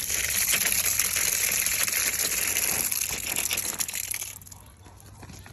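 Water gushing hard from a newly installed hose bibb opened fully, a steady rush that dies down about four seconds in.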